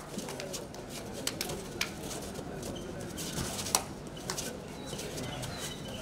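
Low murmur of a crowd outdoors, with scattered short sharp clicks and taps, and faint high chirps in the second half.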